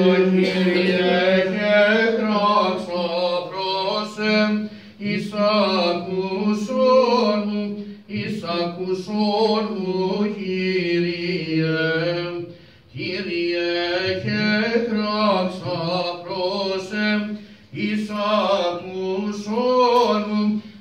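Greek Orthodox Byzantine chant: a chanter sings a slow, ornamented melodic line in long phrases over a steady low drone (the ison) held beneath it, with short breaks between phrases.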